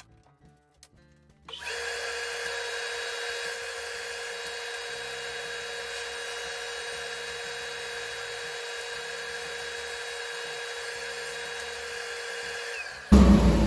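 Woodworking power tool motor running steadily at an unchanging pitch, with no load on it. It starts suddenly about a second and a half in and cuts off near the end, where a louder, lower noise begins.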